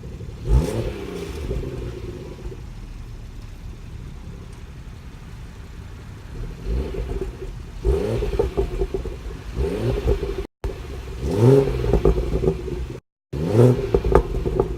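The stock exhaust of a BMW 440i's turbocharged 3.0-litre straight-six, revved in short sharp bursts: one about half a second in, then a run of them in the second half. Each rev falls quickly away in pitch, with pops and crackles from the exhaust on the overrun.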